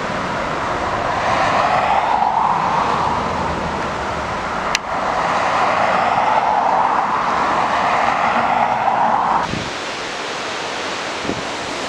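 Jet engines of a Boeing 737 climbing out after take-off, a steady roar over gusty wind on the microphone. There is a short click about five seconds in, and near the end the engine roar cuts off suddenly, leaving only the wind noise.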